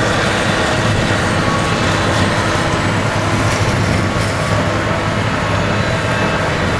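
Claas Jaguar self-propelled forage harvester on tracks running under load while chopping maize: a steady, continuous machine drone with several steady whining tones over it. The engine of the tractor pulling the forage wagon alongside adds to it.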